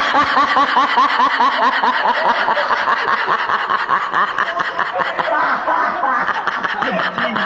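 Rapid, high-pitched snickering laughter, a comic laugh sound effect, going on in quick repeated bursts several times a second.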